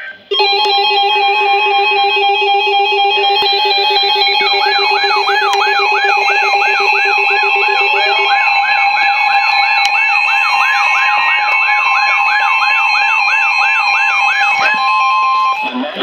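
Several weather alert radios, Midland WR-120s among them, sounding their alert alarms at once for a Special Marine Warning: a stack of steady and pulsing electronic beeps. About four seconds in, a warbling tone joins that sweeps up and down about twice a second. A low steady tone drops out about eight seconds in, and all the alarms cut off just before the end.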